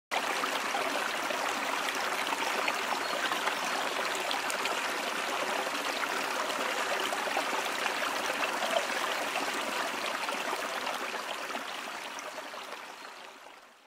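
Flowing stream, a steady rush of running water that starts abruptly and fades out over the last few seconds.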